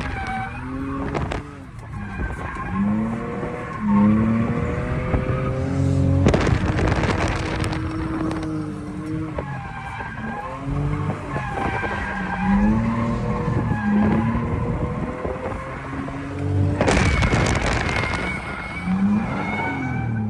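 Drift car's engine revving up and down again and again while its tyres squeal and screech through the slides, heard from inside a car's cabin. There are louder rushes of tyre noise about six seconds in and again near the end.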